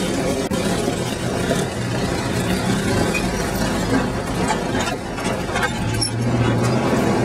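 A 1966 Chevy off-roader's engine running at low speed over a rough dirt trail, heard from inside the cab, with a few light knocks and rattles.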